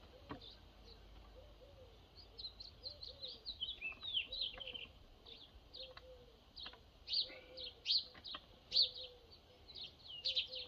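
Small birds chirping: many short, high chirps in quick runs that grow busier and louder about halfway through, with a softer, lower call repeating underneath.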